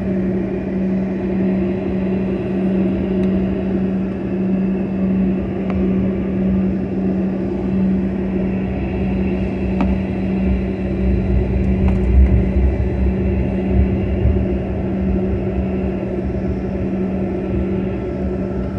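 Cabin noise of a Bombardier CRJ-200 regional jet taxiing: a steady hum from the engines at taxi power over a constant rush of air. A low rumble from the wheels rolling over the taxiway swells about ten to fourteen seconds in.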